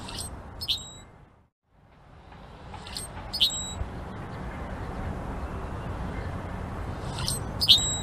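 Male Brewer's blackbird giving its short, squeaky two-part song three times, a few seconds apart, over a steady low background rumble. The background cuts out briefly about a second and a half in.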